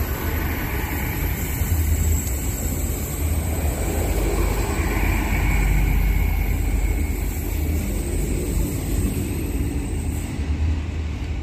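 GWR Class 800 Hitachi bi-mode train passing close by: a steady deep rumble of wheels on rail with faint high tones above it. It is loudest midway and eases as the last vehicle goes by near the end.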